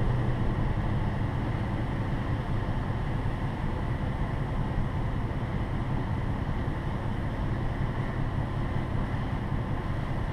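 A vehicle engine idling: a steady low rumble that stays even throughout.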